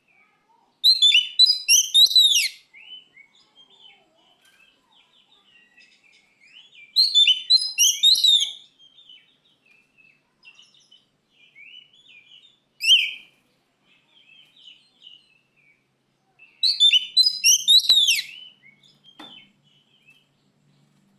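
Oriental magpie-robin (kacer) singing: three loud bursts of fast, rapidly repeated notes, about six seconds apart, with a single short loud note between the second and third, and softer twittering in the gaps.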